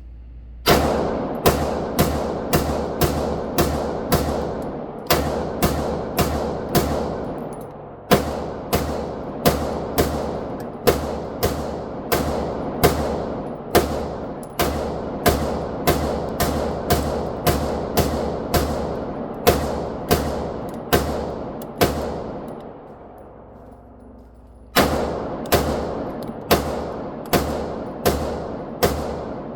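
Glock 19 9mm pistol firing a long string of shots, at about two a second, each shot echoing. There is a pause of about two seconds near the end, then the firing resumes.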